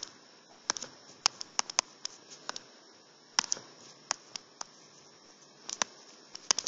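Stylus tapping on a tablet's touchscreen while handwriting: a string of sharp, irregular clicks, some in quick clusters, over a faint room hiss.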